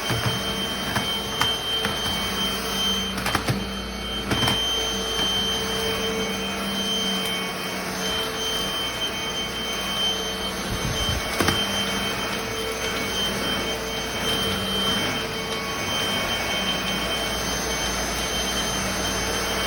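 Cordless stick vacuum running steadily: a high motor whine over a rush of air, with a few light knocks as it is moved about.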